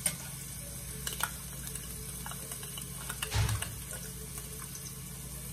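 Garlic and chopped onion sizzling in hot oil in a pot, a steady hiss, with a few light clicks and a dull knock about three and a half seconds in.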